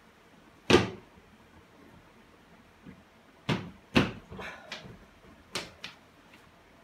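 A series of sharp knocks and bumps against the whiteboard stand as the toy puppets are handled over its top edge. One loud knock comes about a second in, two more follow close together later on with a short rattle after them, and two lighter knocks come near the end.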